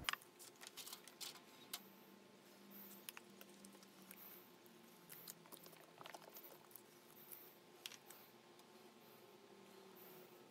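Near silence with faint, scattered small clicks and taps from containers being handled by gloved hands on a workbench.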